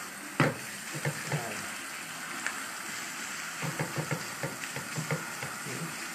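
Ground pork sizzling in hot oil in a nonstick wok as a spatula stirs and scrapes it. A sharp knock about half a second in, and quick repeated scrapes of the spatula against the pan from a little past halfway.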